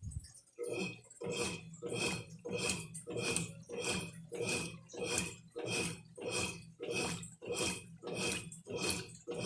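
Brastemp Ative 11 kg top-loading washing machine agitating a full load with the turbo setting off: the agitator swishes water and clothes back and forth in a steady rhythm, about three strokes every two seconds.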